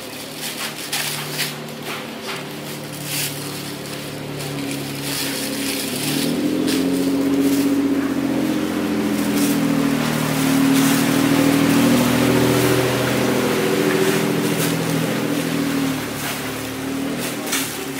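Steady hum of a motor running, getting noticeably louder from about six seconds in and easing off near the end, with the crinkle of a plastic bag of raw meat being handled and twisted shut.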